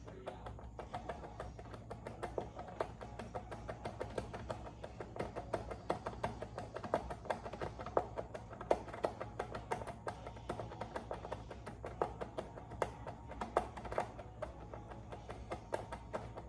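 Rapid, irregular clicking and tapping of a hand tool working the footpad screws on a Onewheel Pint, several clicks a second, over a low steady hum.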